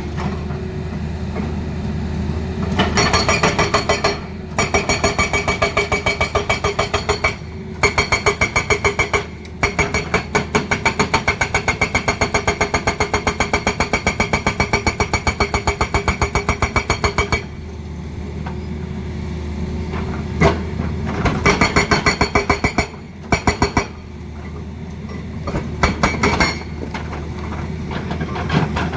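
Hydraulic breaker on a Tata Hitachi excavator hammering in rapid, evenly spaced blows. It comes in bursts of one to several seconds, the longest running about eight seconds, with the excavator's diesel engine running steadily in the pauses.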